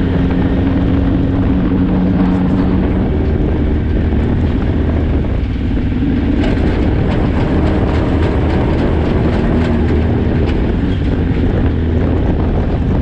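Off-road race car engine running steadily under way, with a dense patch of clicks and rattles in the middle.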